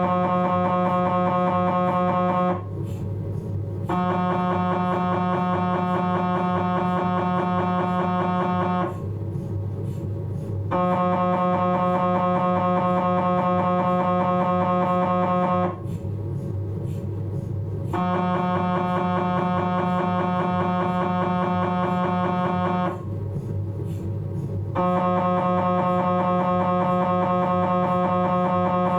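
Philips 1.5 T MRI scanner's gradient coils buzzing through a T2-weighted axial respiratory-triggered scan: a loud, steady tone with many overtones in blocks of about five seconds, broken four times by pauses of a second or two where only a low hum remains. The pauses are the scanner waiting for the patient's next breath to trigger the next block of imaging.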